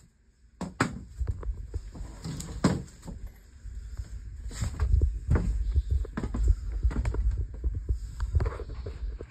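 Irregular thumps, knocks and clicks of wood being handled and bumped as a 2x4 stud is worked into position on an attic plank floor. The sounds start about half a second in and are densest in the middle.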